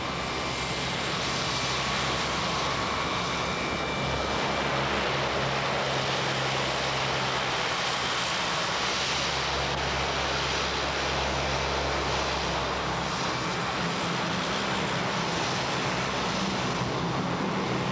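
Lockheed C-130E Hercules's four Allison T56 turboprop engines running as it taxis: a steady propeller drone with low tones and a thin turbine whine, a little louder after the first couple of seconds.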